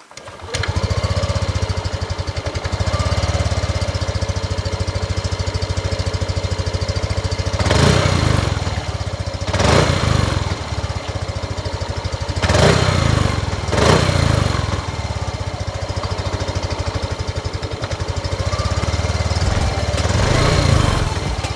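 Yamaha Aerox 155 scooter's single-cylinder engine through its stock exhaust: it starts about half a second in and idles, with the throttle blipped about five times, each rev rising and falling back to idle.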